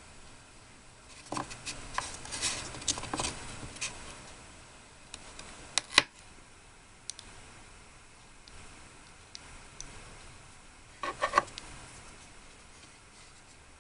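Light clicks and taps of small miniature kitchenware and tools being handled, with one sharp click about six seconds in and a quick run of clicks near the end.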